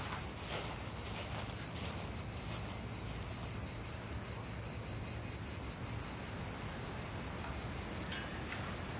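Steady chorus of insects chirring outdoors in summer: a continuous high buzz that neither rises nor falls.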